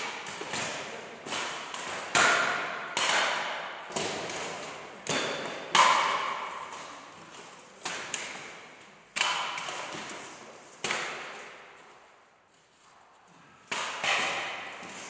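Armoured fighters sparring: weapons striking steel armour and shields in about a dozen sharp clanging hits at uneven intervals, each ringing out in the long echo of a stone church.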